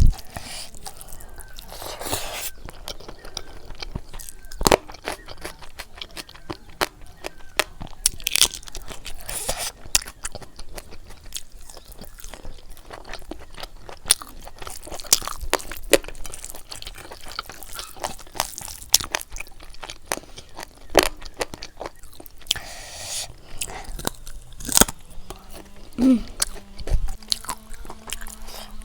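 Close-up mouth sounds of chewing and crunching while eating pork curry with rice, with many short sharp clicks and crunches at irregular intervals. A faint steady low hum comes in near the end.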